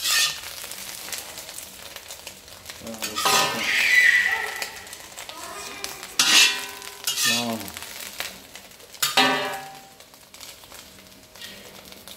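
Pickled bamboo shoots and eggs sizzling as they fry in a pan, with a utensil stirring and clinking against the pan. A few loud, short vocal sounds cut in over the frying.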